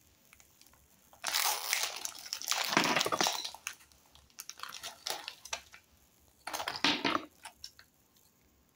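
Foil-lined plastic wrapper of a Sunfeast Hi-Fi cookie packet being torn open and crinkled by hand: a loud stretch of crackling about a second in, lighter rustles, then a second short burst of crinkling later on.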